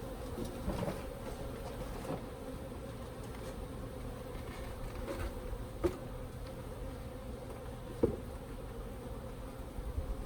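Honeybees buzzing steadily around an opened hive, with two sharp knocks about six and eight seconds in.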